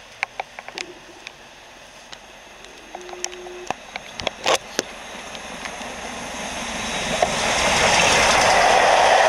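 LMS Black 5 4-6-0 steam locomotive and its coach running through at speed, the noise swelling over the last few seconds into a loud rush as it passes close by. A few sharp clicks and a brief low tone come before it in the first half.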